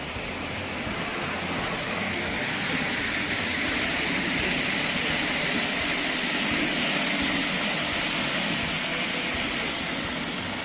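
Model electric multiple-unit train running past on the layout track: a steady rushing of its motor and wheels on the rails that builds to its loudest around the middle and eases off near the end.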